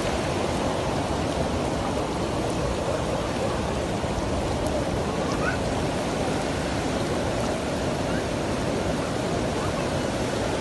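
Fast, muddy floodwater from an overflowing dam rushing steadily across flooded ground, an even, unbroken roar of moving water.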